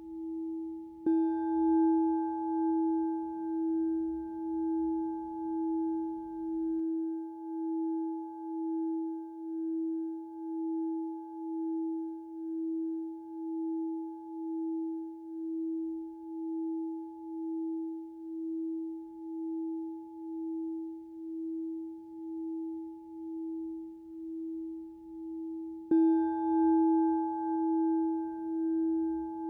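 Singing bowl struck twice, about a second in and again near the end. Its low tone rings on between strikes with a slow, even wobble of a little over one pulse a second.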